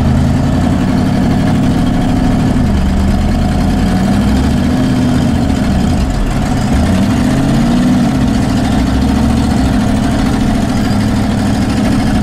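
Vehicle engine running under load, its pitch rising and falling several times as it revs up and eases off, while climbing a steep snowy hill.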